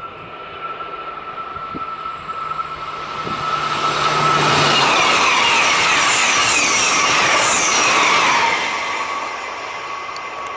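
TGV Réseau high-speed electric trainset 4530 passing at speed. A rising rush of noise as it approaches, loudest for about four seconds as the cars sweep by in a rapid series of swishes, then easing off as the tail passes.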